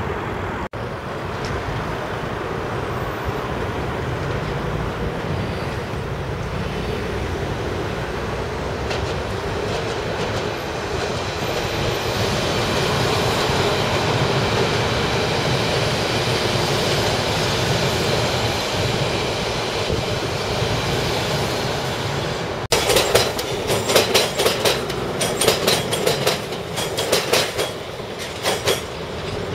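London Underground S-stock trains running along the tracks with a steady rumble and a faint high whine. About two-thirds of the way through, the wheels clatter over pointwork in a rapid, irregular run of sharp clacks.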